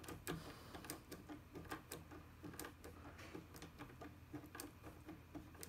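Faint, irregular small metallic clicks, about three a second, from a Turbo Decoder HU66 pick-decoder being turned and worked by hand inside a VAG first-generation ignition lock cylinder under turning tension.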